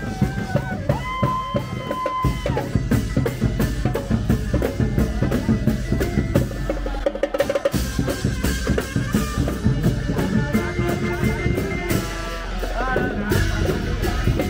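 Thai brass band (trae wong) playing with a drum kit keeping a busy beat, horns holding long notes. There is a quick drum roll about halfway.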